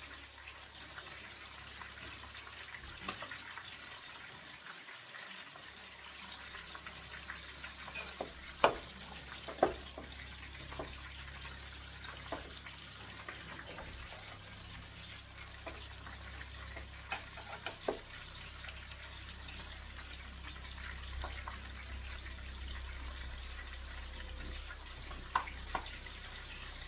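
Cou-cou of cornmeal and okra being stirred in a pot: a steady hiss under scattered sharp knocks of the stirring spoon against the pot, the loudest pair about a third of the way in.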